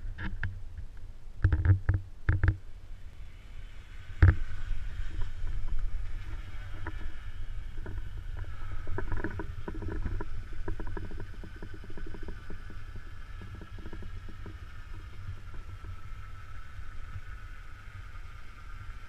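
Multirotor drone's electric motors and propellers whining as it lifts off and hovers overhead, a steady pitched hum that starts about four seconds in and sinks slightly in pitch. Wind rumbles on the microphone throughout, with a few knocks near the start and a sharp click just as the whine begins.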